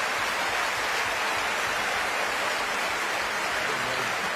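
Theatre audience applauding, a steady even clapping throughout.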